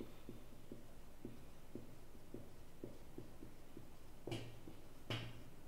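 Quiet room tone with a steady low hum and faint, evenly spaced ticks about twice a second, and two brief soft sounds near the end.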